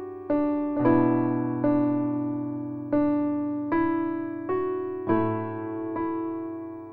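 Background piano music: a slow, gentle melody of single notes, each struck and left to fade, with low bass notes underneath.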